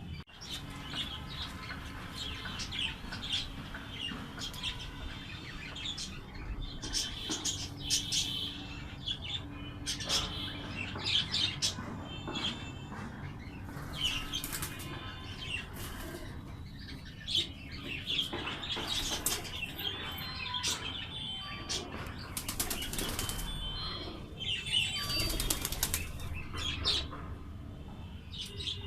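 Birds fluttering and flapping their wings in repeated short bursts, with a few brief chirps.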